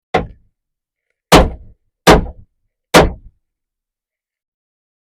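Wooden mallet of beech and hickory with a pine face striking a pine board: one lighter tap, then three hard knocks less than a second apart.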